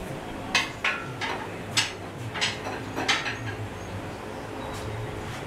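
Sharp metal clinks and knocks, about six of them, irregularly spaced and mostly in the first three seconds, from a shop engine hoist being worked by its jack handle.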